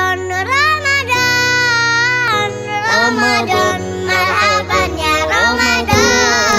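Background music: a song with a high singing voice over sustained instrumental accompaniment.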